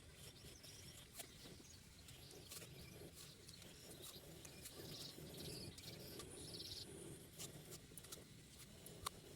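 Faint eating sounds of a person chewing fruit and rice, with many small wet clicks and smacks scattered throughout.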